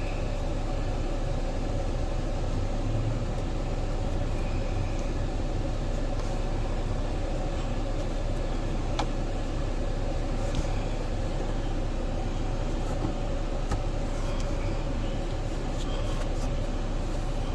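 Steady drone of a vehicle running, heard inside the cabin, with a constant hum and low rumble. A few faint light clicks sound over it.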